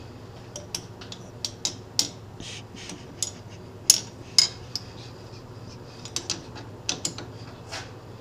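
Scattered sharp metal clicks and clinks as a T-handle chuck key is handled and fitted into the jaw screws of a lathe's four-jaw chuck, with the clamped workpiece and bar stock knocking against the jaws. A low steady hum runs underneath.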